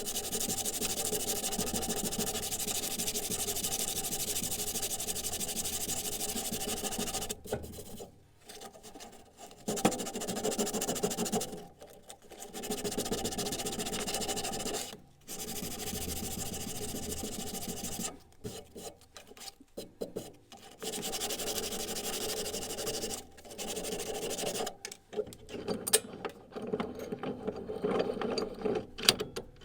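Steady rasping of a file or abrasive working the steel of an old hammer. It runs without a break for about seven seconds, then goes on in stretches of a few seconds with short pauses, choppier near the end.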